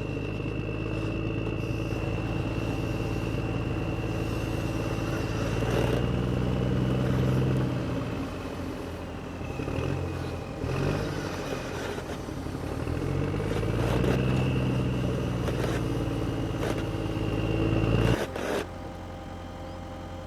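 Radio-controlled model excavator running: a steady motor hum whose pitch rises and falls twice as it works, with a few light knocks, then cuts off sharply near the end.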